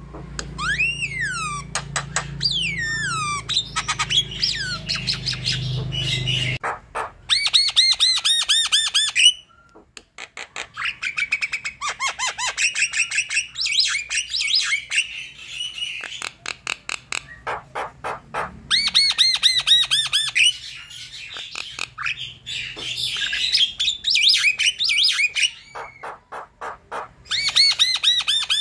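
Javan myna in full chattering song: long runs of rapid repeated whistled and harsh notes, mixed with gliding whistles and squawks, broken by a couple of short pauses.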